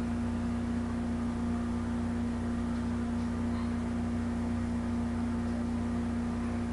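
A steady hum holding one even pitch, with faint hiss behind it and no other sounds.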